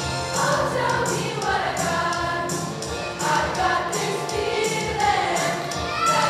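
A large mixed choir singing in harmony.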